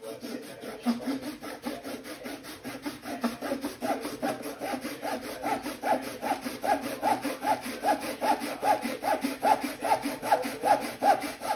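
Hand saw cutting through the yellow-green plastic housing of a Ryobi 18V tool, in quick even back-and-forth strokes about three a second that grow louder as the cut goes on.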